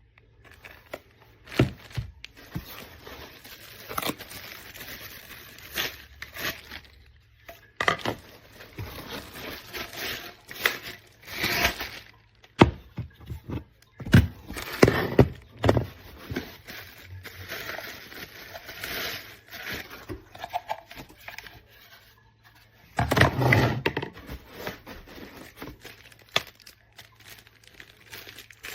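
Irregular handling noises: rustling and crinkling, scraping, and sharp clicks and knocks, with a longer, louder rustle near the end.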